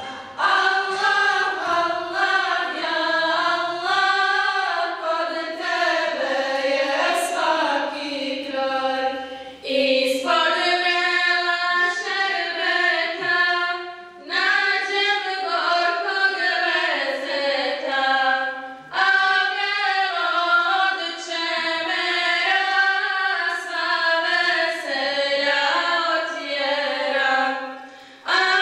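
A choir singing a Bosnian Islamic devotional hymn (ilahija) in long, sustained phrases, with brief pauses between them about every four to five seconds.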